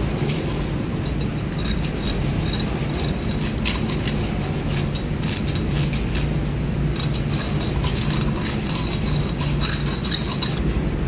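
A hand tool scraping and rasping hardened cargo residue out of the bore of a flanged steel bilge pipe fitting, in short irregular strokes, over a steady low hum.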